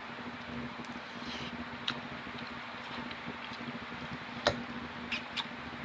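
A few light clicks and taps of a utensil against a dish, the sharpest about three-quarters of the way through, with two more just after it, over a steady low hum.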